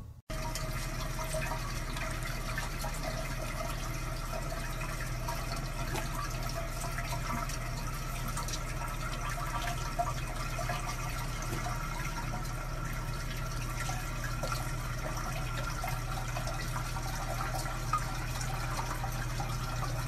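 Water running steadily from a bathroom sink tap into the basin, with a low steady hum beneath it.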